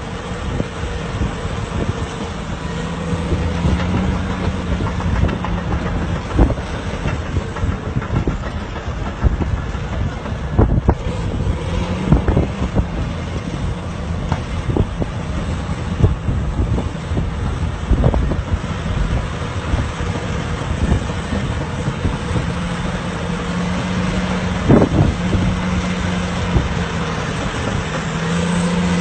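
Heavy vehicle engine running steadily, with sharp knocks and clanks now and then over it.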